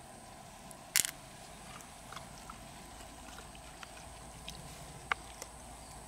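Small clicks and taps of hands handling opened freshwater mussel shells and loose pearls, with a sharp click about a second in and another just after five seconds, over a faint steady background.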